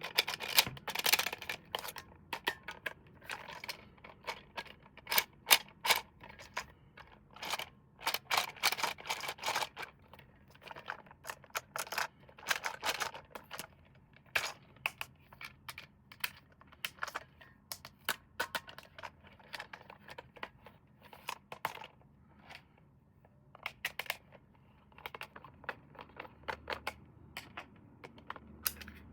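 Irregular clicks, rustles and scrapes of hands unpacking and handling a boxed RC toy and its plastic packaging.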